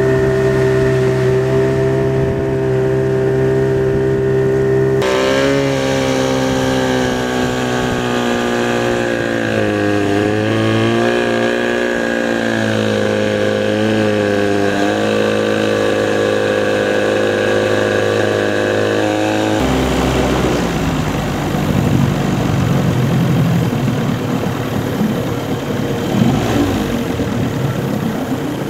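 Outboard motor on an aluminium jon boat running under way, a steady engine note whose pitch shifts abruptly about five seconds in and wavers in the middle. About twenty seconds in the steady note gives way to a rougher, lower rumble with water noise as the motor is throttled back near the ramp.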